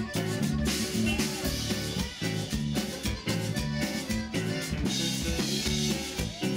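Tejano-style Latin band music with a steady drum-kit beat under sustained instrumental notes.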